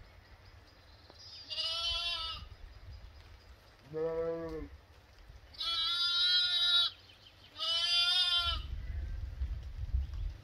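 Ewe and lambs bleating: four bleats about two seconds apart, three high-pitched and one lower. Wind rumbles on the microphone, stronger near the end.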